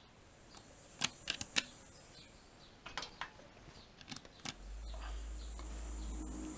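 A few sharp clicks and knocks of handling the machine's controls, then about four and a half seconds in a milling machine's spindle motor starts and runs on with a steady hum.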